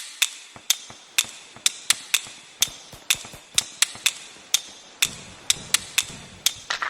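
Fireworks going off: a string of sharp bangs, about two to three a second at uneven spacing, each with a short echoing tail, and a denser crackle joining near the end.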